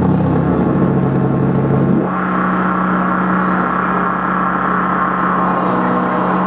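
Electronic noise music from a keyboard synthesizer run through effects: a loud, continuous drone with a steady low hum. About two seconds in the sound shifts, the deepest rumble dropping away and a higher steady tone coming in.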